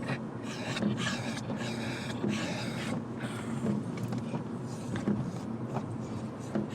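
An excited dog breathing hard in repeated rapid, breathy huffs, over the steady hum of road noise inside a moving car.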